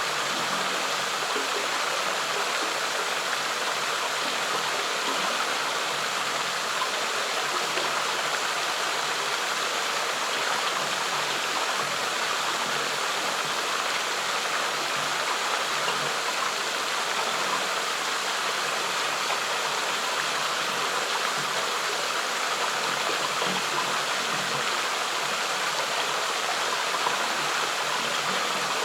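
Flowing stream water rushing steadily and unbroken, with no pauses or changes.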